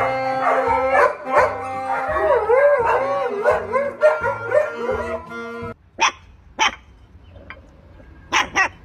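Background music with a wavering melody, cutting off about five and a half seconds in; then a puppy barks in short, sharp yips, once, again half a second later, and a quick pair near the end.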